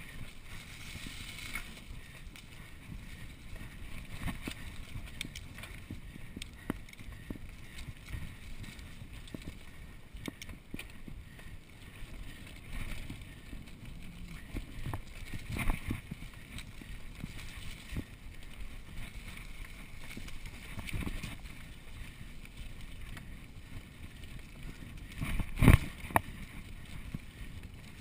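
Mountain bike ridden fast down a dirt singletrack: tyres rolling over dirt and leaf litter, with the bike rattling and knocking over bumps. Two louder knocks from harder bumps come about midway and near the end, the second the loudest.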